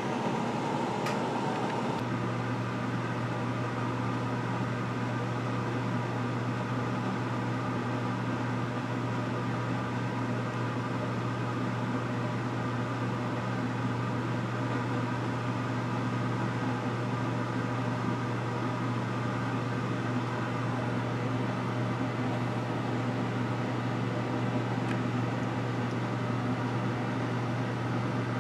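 Steady mechanical hum with a fan-like rushing noise and several steady tones underneath; about two seconds in the tone changes, a higher hum dropping out and a lower one taking over, then it holds unchanged.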